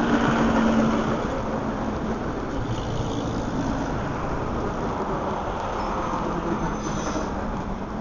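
Suburban electric multiple-unit train rolling slowly past along the platform: a steady rumble of wheels and running gear, with a faint hum near the start.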